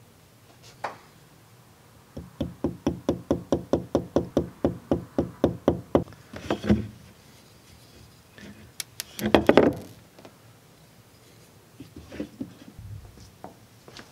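A quick, even run of light knocks, about five a second, for some four seconds. Then comes a single louder knock, and about halfway through a louder burst of clatter, the loudest sound here, followed by a few faint taps near the end.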